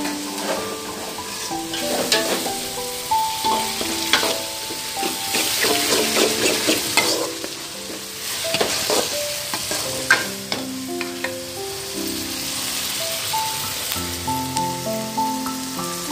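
Sliced small onions, green chillies and curry leaves sizzling in hot oil in a metal pan. A spatula stirs them, with repeated scrapes and clinks against the pan. Soft melodic background music plays underneath.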